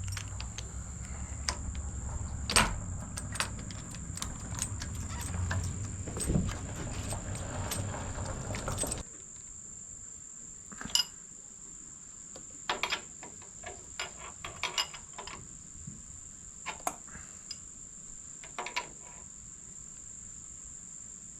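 Scattered metal clicks and clinks of hand tools working the handlebar riser bolts, irregular and sharp. A low hum underneath cuts off suddenly about nine seconds in, and a steady high-pitched whine runs throughout.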